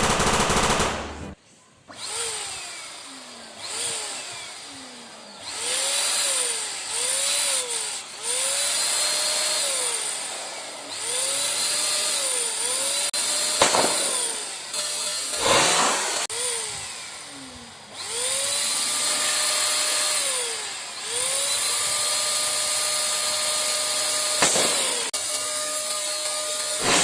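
Small electric balloon pump motor whirring in a dozen or so runs. Each run rises in pitch as the motor spins up, holds steady for a second or more, then falls away as it stops. A few short sharp cracks come in between, the loudest about halfway through.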